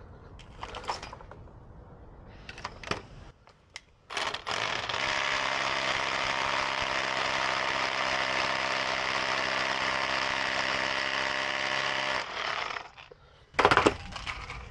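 Milwaukee M18 cordless drill running at a steady speed for about eight seconds while fixing a pipe clip into a brick wall. It starts about four seconds in and stops abruptly. A few light handling clicks come before it and a sharp knock near the end.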